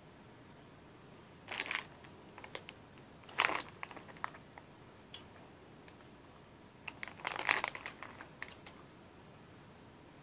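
A Starburst Minis share-size plastic candy bag crinkling in the hands as it is handled, in three short bursts: about a second and a half in, again two seconds later, and a longer one past the middle, with a few light clicks between.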